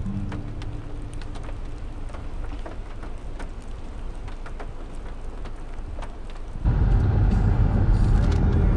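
Rain falling, with scattered drops ticking over a low rumble. About two-thirds of the way in, the sound changes suddenly to the much louder, low rumble of a vehicle on the road.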